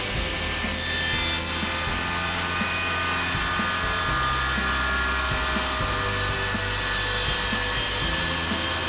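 Table saw cutting through a thick oak end-grain chopping board as it is fed past the blade, the cutting noise getting brighter under a second in.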